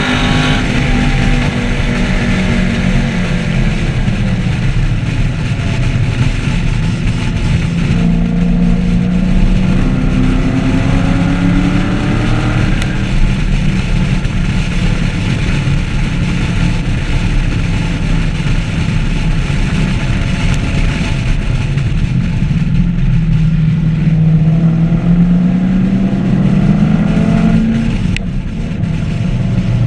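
2014 Camaro SS 1LE's 6.2-litre V8 pulling hard on track, its note climbing through the revs and dropping sharply at shifts or lifts, about 13 seconds in and again near the end. A steady rumble of road and wind noise runs underneath.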